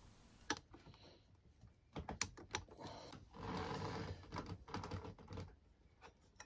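Faint handling noise: scattered light clicks and ticks, with a stretch of rustling from about three and a half to five and a half seconds in, as hands work a toothed rubber timing belt and tools around the engine's pulleys.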